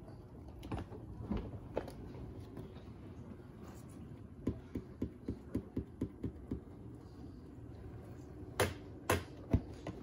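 Faint steady hum from a top-loading washing machine paused mid-cycle. About halfway through comes a quick, even run of about eight light clicks, about four a second, and near the end three sharper knocks, while a hand works at the closed lid.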